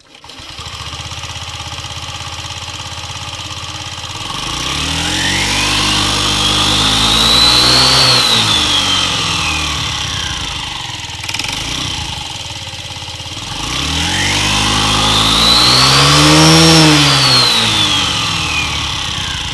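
Honda Gyro Canopy scooter engine starting and idling, then revved up and back down twice, with a high whine from the belt drive rising and falling with engine speed. The drive belt has run 20,000 km and is being checked for an abnormal noise.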